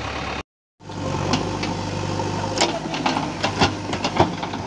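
JCB 3DX backhoe loader's diesel engine running steadily, with several sharp knocks and clatters as the backhoe bucket digs into stony earth. The sound cuts out for a moment about half a second in.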